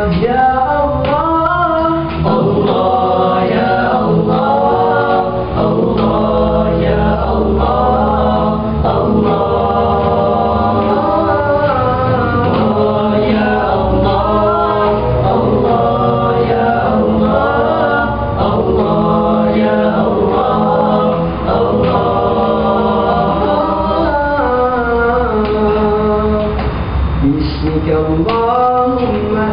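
Group of young men singing nasyid a cappella in close vocal harmony, the melody moving over a steady low part held underneath, without a break.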